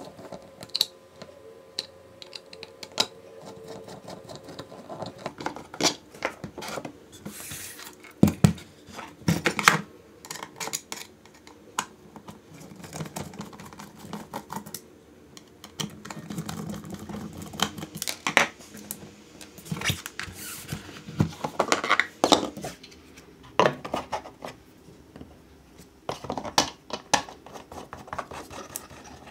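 Hand assembly of 3D-printed plastic saw parts: a screwdriver turning screws into the printed plastic, with the parts clicking, scraping and knocking as they are handled and set down. The clicks come irregularly, with a few louder knocks about a third of the way in.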